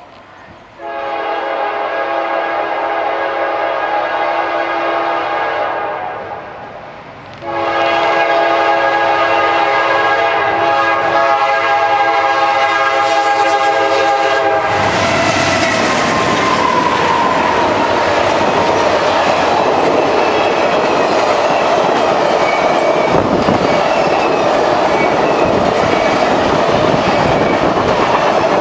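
Diesel locomotive air horn sounding a chord in two long blasts, the second about seven seconds long. Then the CSX locomotives and the circus train's long string of passenger-style cars roll past, their wheels rumbling and clicking over the rail joints.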